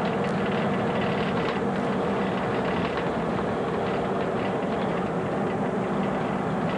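1983 Mack fire engine's diesel engine running steadily while driving, heard from on board, with faint rattles over the drone.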